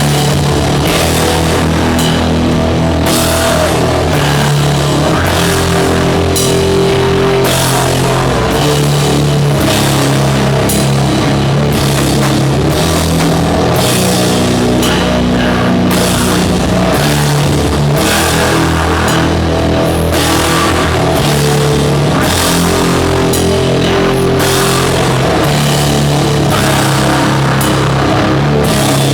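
Doom metal band playing live: distorted guitars and bass on slow, long-held low chords, with drums and frequent cymbal crashes.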